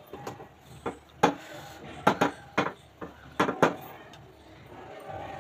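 Kitchen utensils knocking and clinking: about eight sharp, irregular knocks, some in quick pairs, with a brief ring after some of them.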